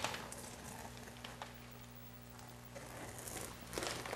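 Blue painter's tape being peeled off a freshly painted textured wall: faint crackling and ripping, a little louder near the end, over a steady low hum.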